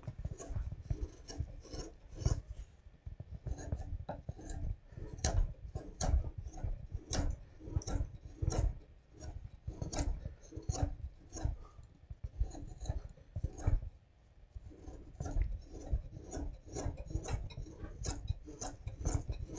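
Long-bent carving gouge pushed by hand through wood, a run of short slicing and scraping cuts at an uneven pace of about one or two a second, with a brief lull about fourteen seconds in.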